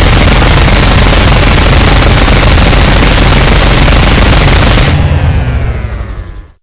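Minigun sound effect: a continuous stream of rapid fire. About five seconds in the firing stops and the spinning barrels wind down with a falling whine, which then cuts off.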